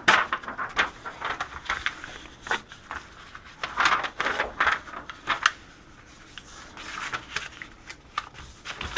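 A sheet of paper being folded and handled, giving irregular rustles, crinkles and light taps.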